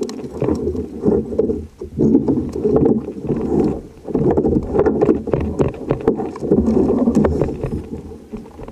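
Sea water sloshing and splashing against a fishing kayak's hull in uneven surges every couple of seconds, with scattered clicks and knocks.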